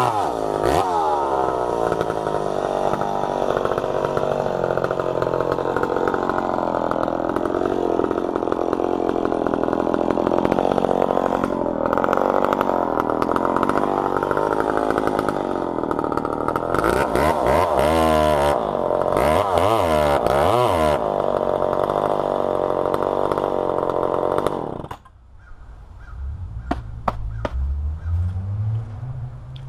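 McCulloch Pro Mac 700 two-stroke chainsaw cutting through a log under load, its engine pitch dropping and wavering as the chain bites. Near the end of the cut it revs up and down several times, then about 25 seconds in the engine shuts off.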